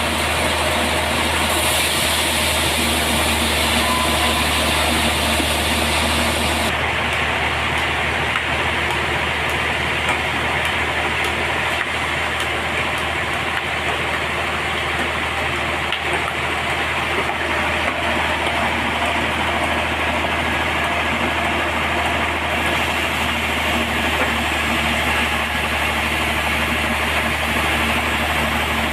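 Sawmill machinery running steadily: a constant loud drone with hiss over it. The highest part of the hiss drops away about a quarter of the way in and comes back near the end.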